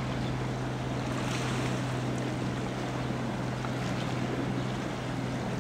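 Gozitan fishing boat's engine running steadily under way, a low even drone, over a hiss of wind and sea.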